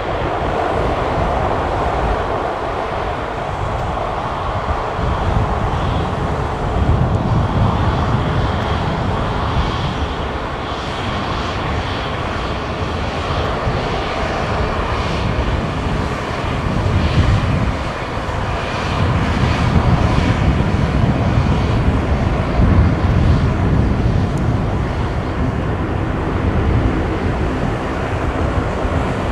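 Airbus A220-300 jet engines running: a loud, steady jet noise with a deep rumble and a faint high whine.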